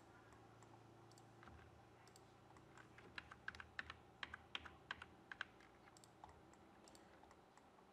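Faint computer keyboard keystrokes: a quick run of about a dozen taps, the Ctrl+Z undo shortcut pressed over and over, between about three and five and a half seconds in, over a low steady hum.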